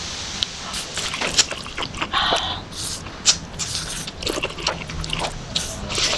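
Close-up eating sounds: irregular wet chewing and mouth clicks with small crunches, and a longer wet slurp or rustle about two seconds in.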